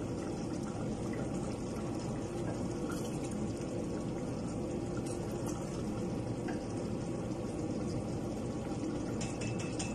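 Thick fruit sauce simmering in a stainless steel pot and stirred with a wooden spoon, a steady bubbling hiss, with a few light clicks near the end.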